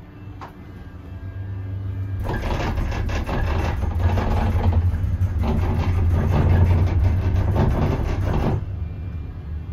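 Cable car cabin rumbling and clattering loudly for about six seconds over a deep hum, typical of the grip running over a tower's roller sheaves; it starts sharply about two seconds in and cuts off suddenly near the end.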